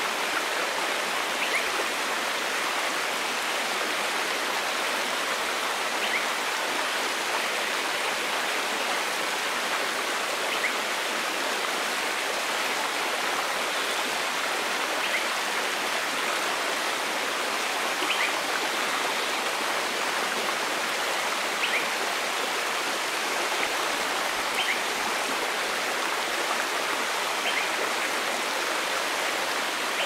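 Steady rushing of a forest stream, with faint short high chirps every few seconds.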